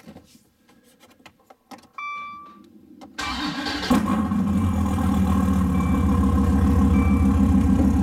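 A short beep about two seconds in, then the 2014 Dodge Viper's 8.4-litre V10 cranks and catches a little after three seconds, flares briefly near four seconds and settles into a steady idle.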